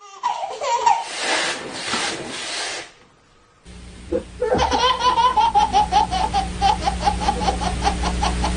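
Baby laughing: a long run of quick, high-pitched laughing bursts, about five a second, over a steady low hum. Before it, a shorter stretch of baby laughter and a noisy rush that cuts off about three seconds in.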